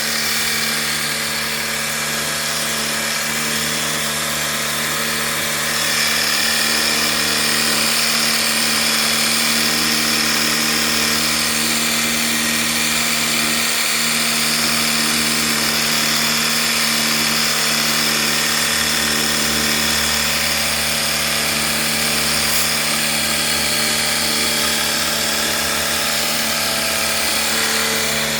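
Electric pressure washer (jet pump) running steadily with a constant motor hum and the hiss of its water spray, which grows louder about six seconds in as the jet washes the air conditioner.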